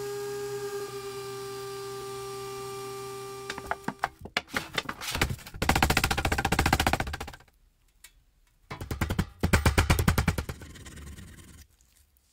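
A steady machine hum, then rapid hammer taps on the sheet-metal panel of a tin toy truck. The taps come in two fast runs of many strikes with a short pause between them, as the bent metal is beaten straight.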